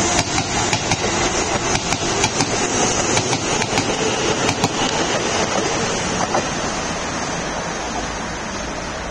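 Keisei 3600-series electric train pulling out past the platform: a steady rush of running noise with irregular clacks of wheels over the rails, fading slowly as the last cars go by.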